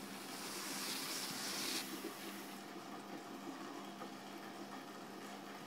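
Steady low hum under an even background hiss, with a louder rushing hiss for the first couple of seconds.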